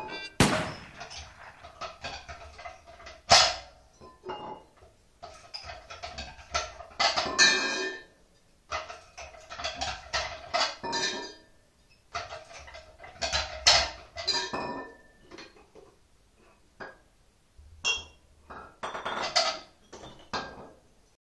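Glass beer bottles clinking against each other and knocking on a tile floor as they are handled and set under a bench bottle capper. The capper's lever clunks as crown caps are pressed on. The knocks come irregularly, the sharpest about three seconds in.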